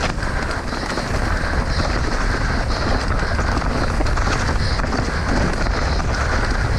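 Mountain bike descending a rocky trail at speed: steady wind buffeting the camera microphone, over a constant clatter of tyres, chain and frame rattling across rough ground.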